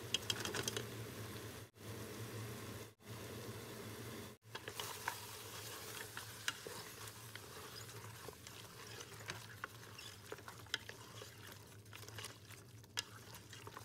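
Lamb pieces and tomato paste sizzling in a hot metal pot while a wooden spoon stirs them, with many small clicks and scrapes of the spoon against the pot. The sound breaks off briefly three times in the first few seconds.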